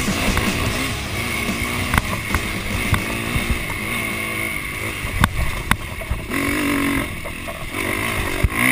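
Dirt bike engine running under load, its pitch rising and falling with the throttle, heard from an onboard camera with wind rushing over the microphone. A few sharp knocks cut through as the bike rides over the rough track.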